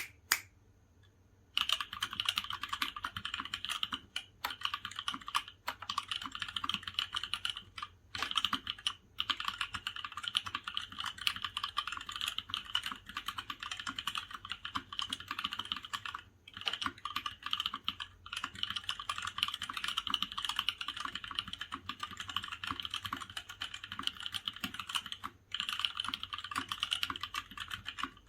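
Steady typing on a gasket-mounted aluminium/polycarbonate Mark 65 mechanical keyboard fitted with brand-new stock Kailh Cream linear switches and PBT Cherry-profile keycaps, with no foam inside. The typing begins after a short quiet moment and pauses briefly now and then.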